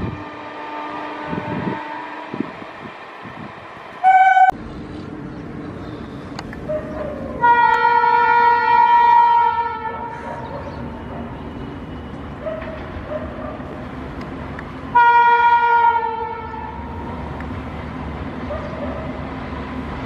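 Indian Railways WAP-7 electric locomotive sounding its horn twice as it approaches, a long blast about seven seconds in and a shorter one about fifteen seconds in, over the rumble of the moving train. Early on, the last coaches of another passenger train roll away, and a brief horn note cuts in about four seconds in.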